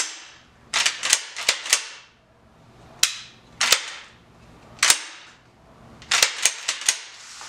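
Weatherby Element semi-automatic shotgun's action being cycled by hand as a function check after reassembly. The bolt is racked back and snaps shut, making sharp metallic clacks in quick clusters, about a dozen in all.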